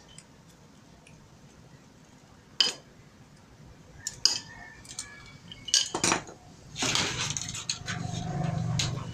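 Pliers and stiff steel chain-link fence wire clicking and clinking as the wire is bent and twisted. A single sharp click comes after a quiet start, then a few scattered clicks, and a denser run of clinks and scraping in the last couple of seconds.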